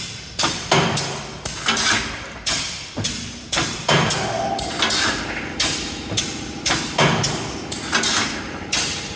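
Automatic wire mesh welding machine running, its welding and feed strokes knocking in a steady rhythm of about two sharp clanks a second.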